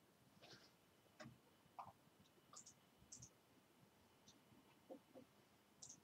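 Near silence with about ten faint, irregular computer mouse clicks.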